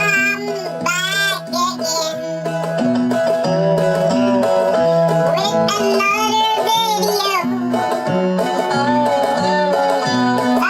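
Country-style music with plucked strings and a voice singing in short phrases.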